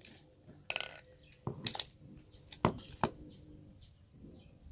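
Starter motor parts knocking and clicking as they are handled: about five short, sharp knocks in the first three seconds, with quiet between.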